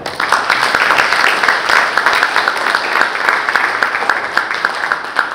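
Audience applauding: dense clapping from many hands that starts at once and begins to thin out near the end.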